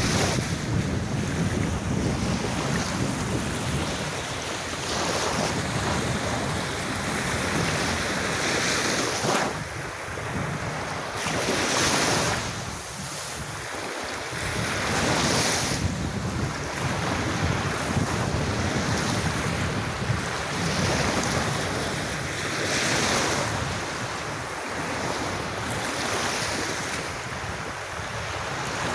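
Sea waves breaking and washing up on a beach, swelling and easing every few seconds, with wind noise on the microphone.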